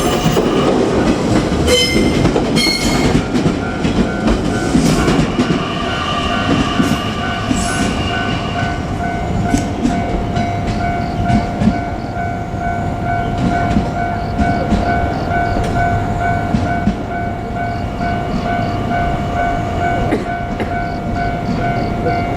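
JR Kyushu 817-series electric train running past on the rails with a steady low rumble. A level-crossing warning bell rings in a fast, even repeating pattern from a few seconds in.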